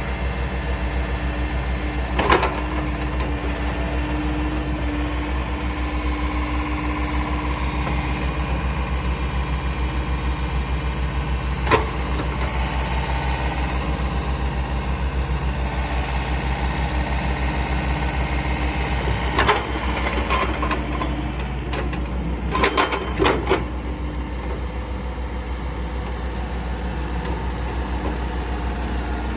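JCB 86C-1 excavator's diesel engine running steadily while the boom, arm and bucket are worked and the upper structure slews. Sharp clanks from the working gear break through about two seconds in, near the middle, and in a quick run of several later on.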